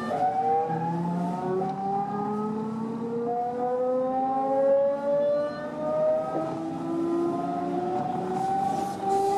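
DB Class 425 electric multiple unit's traction converter and motors whining as the train accelerates, heard from inside the passenger car: several tones rise slowly in pitch together, and the pattern jumps to a new set of tones about six seconds in.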